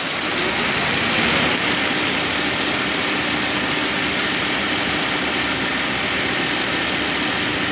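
Concrete mixer truck's engine running steadily while the drum discharges wet concrete down its chute, with a steady rushing noise over it.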